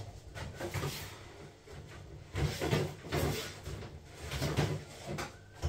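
A refrigerator is opened, potatoes are handled and taken out, and the door is shut, heard as a series of short knocks and rustles.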